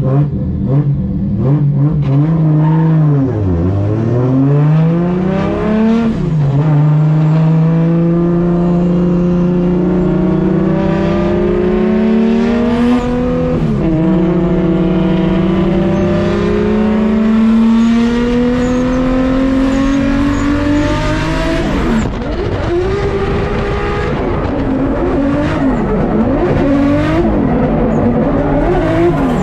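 A drift car's engine held high in the revs through a long slide. The revs drop sharply twice early on, then climb slowly and steadily for about fifteen seconds with one brief dip midway. Near the end they rise and fall several times.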